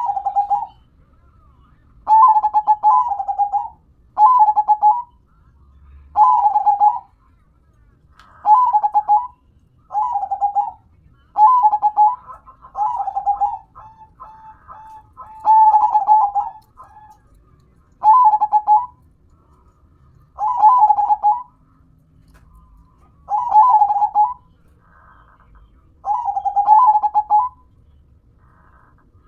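Zebra dove (perkutut) cooing: a series of rolling, trilled coo phrases about a second long, repeated roughly every two seconds, with one longer pause about two-thirds of the way through.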